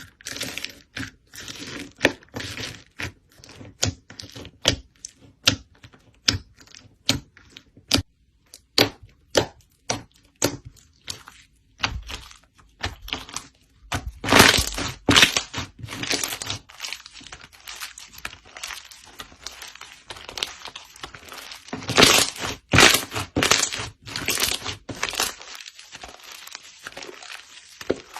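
Slime being squeezed and poked by hand, making a run of sharp clicks and pops. Two denser crackling stretches come about halfway and about four-fifths of the way through.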